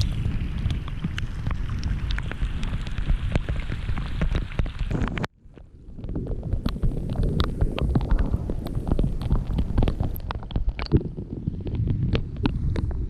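Rain coming down, with many sharp drop hits, over a heavy low buffeting of wind on the microphone. The sound cuts out abruptly about five seconds in and then resumes.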